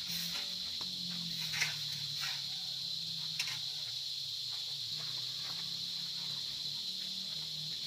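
Steady high-pitched insect chorus, with two faint light knocks.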